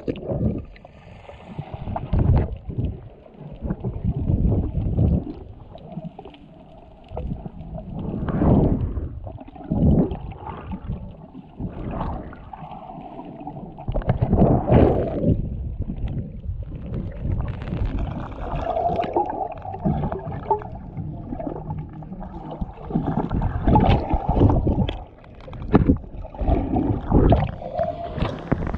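Seawater sloshing and gurgling in uneven surges, heard through a camera in or at the surface of the sea after a cliff diver's plunge.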